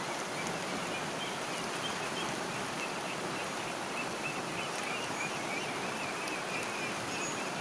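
Shallow river flowing around boulders: a steady, even rush of water.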